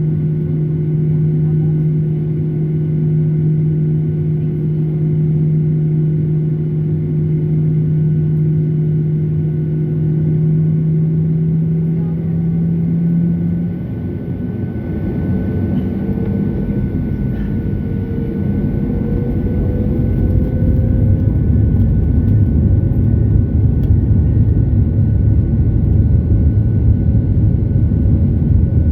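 Boeing 737-800's CFM56-7B jet engines: a steady hum, then about halfway a whine rising in pitch as the engines spool up to takeoff power, and a louder, steady rumble building over the last several seconds.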